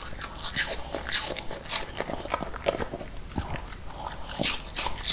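Old miniature pinscher chewing raw apple pieces, with a run of irregular, sharp crunches.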